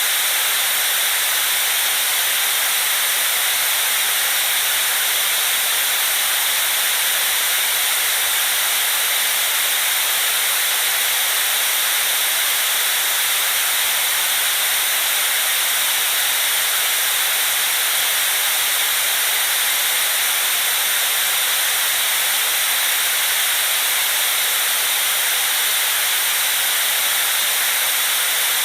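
White noise for lulling a baby to sleep: an even, unchanging high hiss that never rises or falls.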